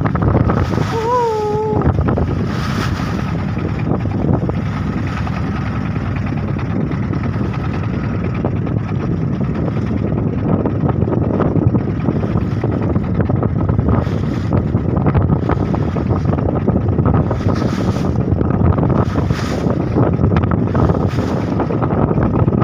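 Strong wind buffeting the microphone over the rush and splash of sea waves against a small fishing boat, with several brief louder surges in the second half.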